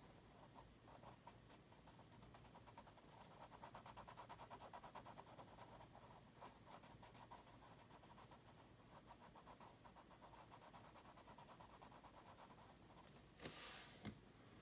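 Quick, repeated back-and-forth strokes of a drawing pen on paper, as when filling in or shading part of a drawing, several strokes a second. A brief louder rustle comes about a second before the end.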